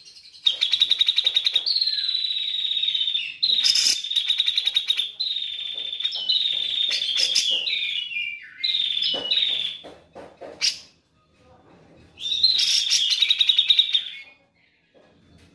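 Grey-cheeked bulbul (cucak jenggot) singing in long runs of rapid chattering trills, with a few falling notes. It breaks off about ten seconds in and resumes with another trill burst near the end.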